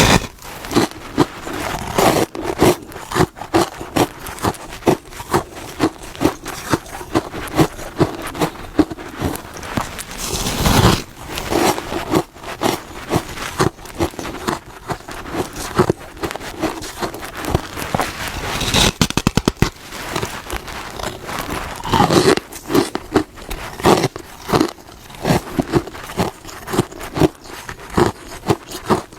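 Close-up biting and chewing of hard freezer frost: a quick, continuous series of crisp crunches.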